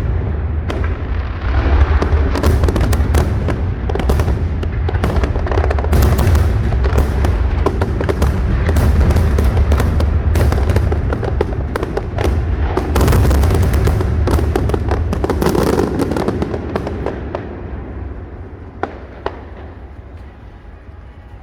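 Aerial fireworks display: a dense barrage of bangs and crackles over a heavy low rumble, thinning out after about seventeen seconds to a fading rumble with a couple of isolated pops near the end.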